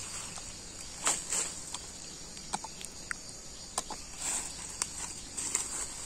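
Steady high-pitched chirring of insects, with scattered light clicks and rustles over it.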